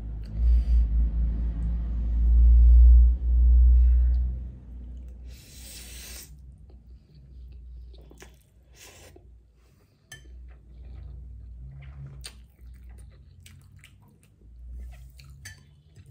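Close-miked eating of ramen noodles. A loud low rumble runs for the first four seconds or so, then a short hissing slurp comes about five seconds in, followed by quieter chewing with small clicks.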